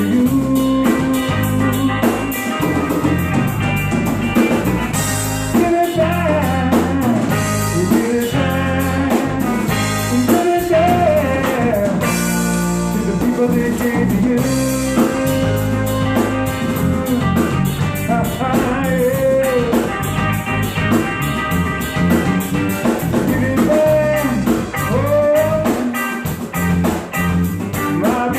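Live band playing a bluesy instrumental passage: guitar over a drum kit, with lead lines that bend up and down in pitch.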